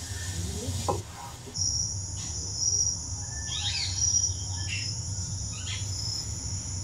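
A steady high-pitched insect drone that sets in about a second and a half in, with a few short bird chirps over it and a low steady hum underneath.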